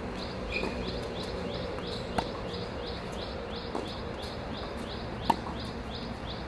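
Tennis rally: racket strikes on a tennis ball, a sharp crack about two seconds in, a fainter one just under four seconds, and the loudest about five seconds in. Under them runs a rapid, steady high chirping, about five or six chirps a second.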